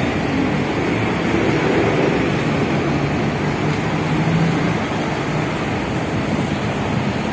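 Steady city street traffic noise, with the engines of double-decker buses and cars running close by.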